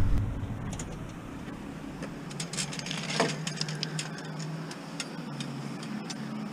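A broken metal wire clothes-drying rack being picked up and handled, giving scattered light clicks and rattles, over a steady low hum.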